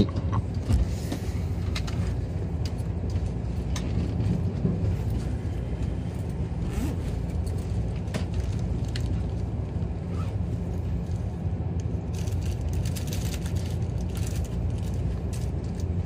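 Steady low hum inside a JR 383-series electric express car at a standstill, likely its on-board equipment and air conditioning, with scattered light clicks and knocks.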